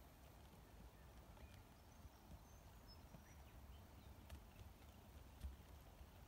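Very faint hoofbeats of a ridden paint mare on a dirt track, a few soft irregular clicks over a low steady rumble, barely above silence.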